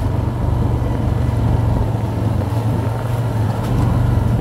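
Quad bike (ATV) engine running steadily at low speed, a loud, even low drone as it rides along a muddy dirt track.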